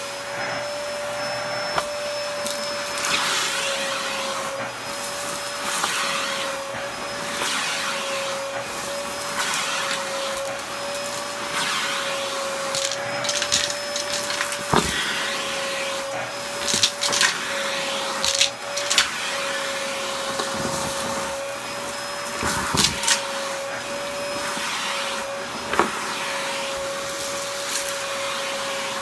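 Cordless stick vacuum running with a steady whine as its floor head is pushed over a shag rug. Sharp crackles and clicks come through as bits of crunchy debris are sucked up, thickest around the middle.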